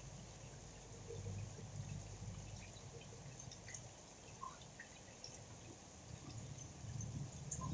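Faint rain with scattered drips, over a low steady rumble.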